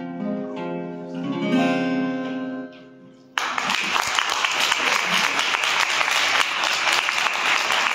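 Acoustic guitar playing the closing notes of a song, ending on a final strum that rings out and fades. A little over three seconds in, an audience starts applauding suddenly and keeps clapping.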